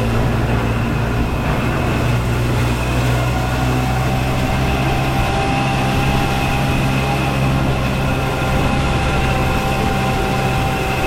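Engine of a small visitor train running steadily, heard from aboard as it rolls along, with a faint steady whine joining about three seconds in.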